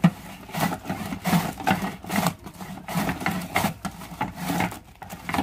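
Cabbage being shredded on a kraut board: the sliding box of cabbage is pushed back and forth over the blade, giving a rhythmic scraping stroke about twice a second.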